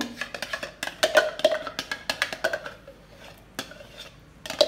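A spoon knocking and scraping against the container and the steel kadhai as thick tomato puree is scraped out into the pan: a quick run of small clicks and knocks that thins out after about two seconds, with a sharper knock near the end.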